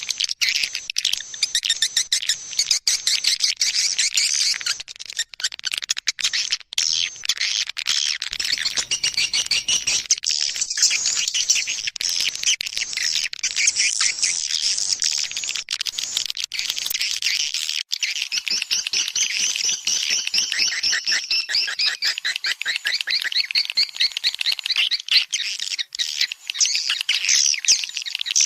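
Swiftlet calling-sound recording: dense, unbroken high chirping and fast twittering of edible-nest swiftlets. It is a lure played to draw swiftlets into a nesting house.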